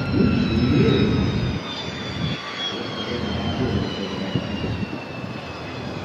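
U-2 reconnaissance jet's single turbofan engine whining as it lands, the whine slowly dropping in pitch over a rough rumble that is loudest in the first second and a half.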